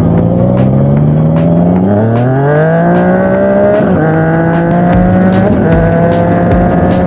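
Yamaha MT-09's inline-three engine through an Akrapovic shorty exhaust, accelerating: the engine note climbs steeply from about two seconds in, drops with a gear change near four seconds, then holds a fairly steady pull.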